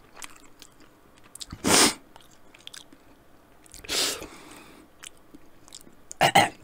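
A person chewing a hot-sauce-covered chicken wing close to the microphone, with small wet chewing clicks, and two loud hissing breaths through the mouth about two seconds apart as the spice heat builds. A short cluster of louder mouth noises comes near the end.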